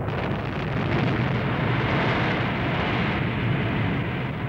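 Sustained rumble of a nuclear test explosion: a dense, steady noise with no separate bangs in it.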